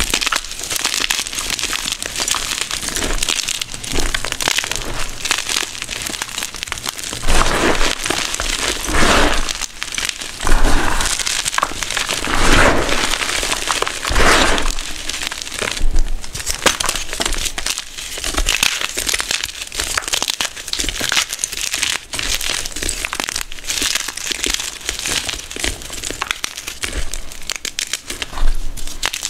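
Blocks of gym chalk crunching and crumbling as bare hands break and squeeze them into loose chalk powder. A continuous run of crackling crunches, with louder crunches in the middle.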